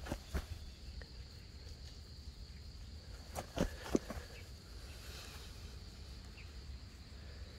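Insects chirring steadily at a high pitch, with a few short sharp knocks: two near the start and two more about three and a half seconds in.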